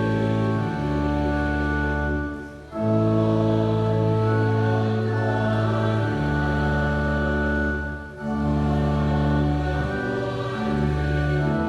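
A church hymn sung by voices with organ accompaniment, in long held chords, with two brief breaks between phrases.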